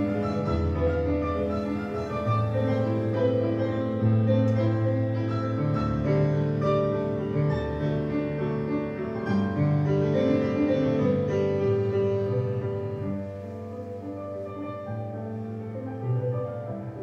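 Solo piano playing ballet-class accompaniment music, growing softer about two thirds of the way through.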